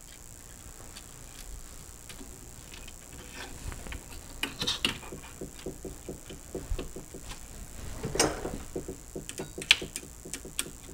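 Small metal hardware being handled and a screw being started into a T-nut and turned with a screwdriver: light clicks and quick ticks, a brief scrape a little past the middle and a sharp click near the end.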